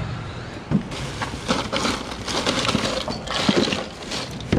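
Hands rummaging in a small plastic cooler, crackling plastic bags and bottles as a fish is put away, with a few sharp knocks of the lid and contents.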